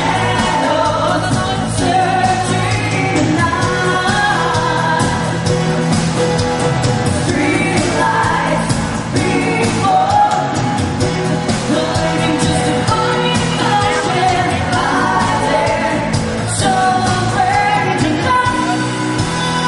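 A pop-rock band playing a song, with a singer carrying the melody over bass and drums.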